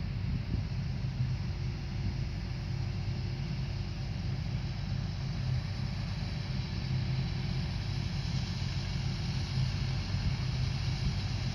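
Diesel-powered corn harvesting machinery running steadily: a low, even engine drone with a steady hiss above it.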